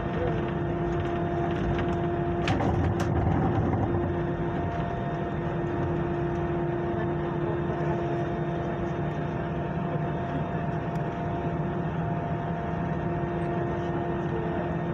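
Steady hum and rush of an airliner cabin: jet engines and air conditioning running evenly, with a steady low drone, and a couple of light clicks about three seconds in.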